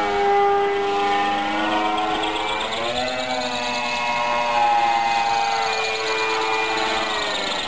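Electric motor and propeller of an RC model autogyro (Cerva C2) in flight: a steady multi-toned whine. It rises in pitch about three seconds in, then slides gradually lower.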